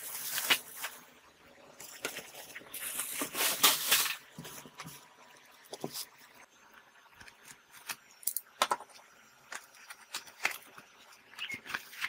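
Plastic wrapping rustling and crinkling and cardboard packaging being handled as parts are lifted out of a box. It comes in irregular bursts, the loudest about three to four seconds in, with scattered light knocks and clicks.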